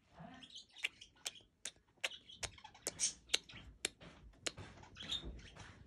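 Quiet lip-smacking kisses pressed onto a budgerigar held against the mouth: about a dozen short, sharp smacks at uneven intervals.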